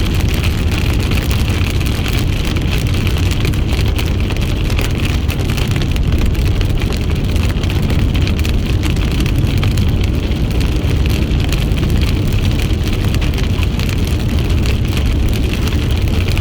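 Steady road and tyre noise with a low engine rumble inside a car being driven along a highway.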